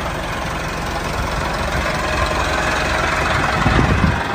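Tractor engine running steadily with a fast low knock, swelling louder briefly near the end.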